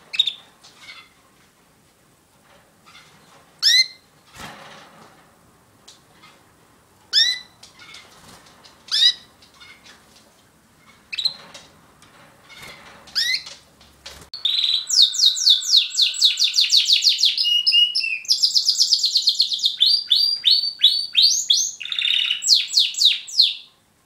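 Border canary giving single short rising chirp calls about every two seconds, then breaking into loud continuous song about fourteen seconds in: fast trills and rolls of rapidly repeated bright notes, cutting off near the end.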